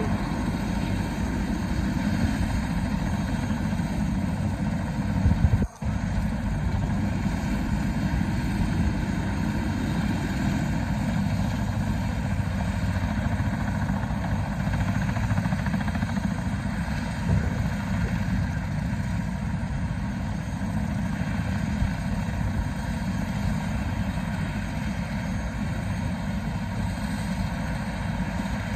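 Eurocopter AS350 B2 helicopter's single turboshaft engine and rotor running steadily on the ground before lift-off, with a brief break in the sound about six seconds in.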